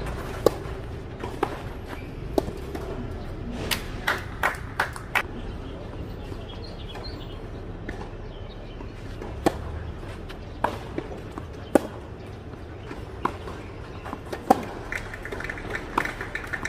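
Tennis ball being played on a clay court: sharp pops of racket strikes and bounces, a quick cluster about four seconds in, then single pops roughly a second or so apart in the second half as a rally goes on.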